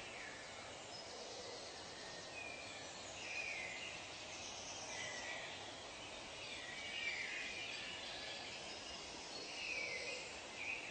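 Natural ambience with birds calling: scattered short chirps and calls come and go over a steady background hiss.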